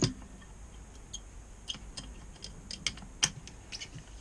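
Scattered sharp metallic clicks and ticks from hand tools working on a motorcycle fork leg as it is opened up, irregular rather than a steady rhythm, the sharpest about three seconds in.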